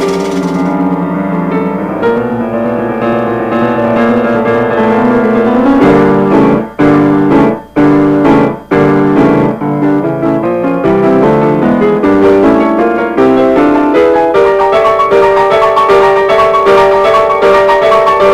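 Piano music playing chords and melody, breaking off briefly three times near the middle before going on with repeated higher notes.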